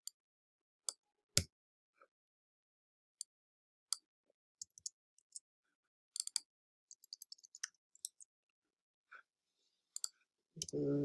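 Scattered single clicks of a computer keyboard and mouse during code editing, with a quicker run of keystrokes about six to eight seconds in.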